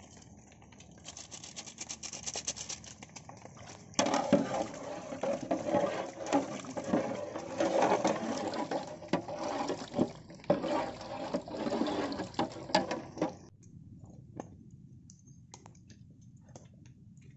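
Wooden paddle stirring chicken in a thick, wet marinade in a large aluminium pot: wet sloshing and squelching with knocks of the paddle against the pot. It starts suddenly about four seconds in and stops about thirteen seconds in.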